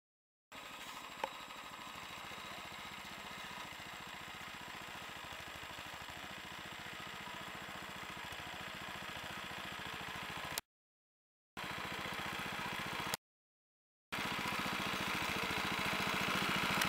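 Engine of a KADVI MB-1 walk-behind tractor running steadily, its firing heard as a fast low pulse, growing slowly louder. It cuts to dead silence twice in the last third, at splices.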